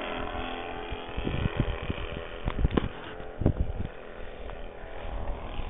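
An aeroplane's engine droning steadily overhead, with a few knocks and bumps between about one and four seconds in.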